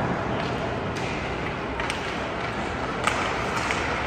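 Ice hockey game in an indoor rink: a steady wash of skating and arena noise, broken by a few sharp clacks of sticks and puck.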